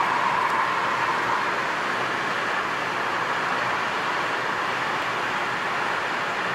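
Steady road and tyre noise of a car cruising at about 80 km/h through a road tunnel, heard from inside the cabin.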